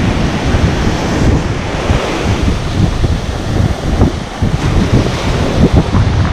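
Waves breaking and surf washing up a sandy beach, with strong wind buffeting the microphone in gusts.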